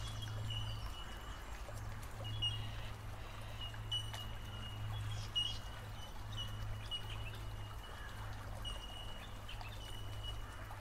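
Rainforest creek ambience: water trickling, with a thin, high steady call from an insect or bird that breaks off and starts again every second or two.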